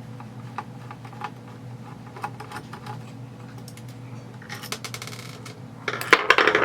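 Light clicks and taps of hand tools and small gun parts being handled, with a short rattle about four and a half seconds in and a louder clatter near the end.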